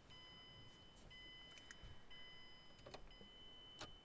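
Faint electronic tone inside a car, repeating about once a second: a car's warning chime, with a few faint clicks.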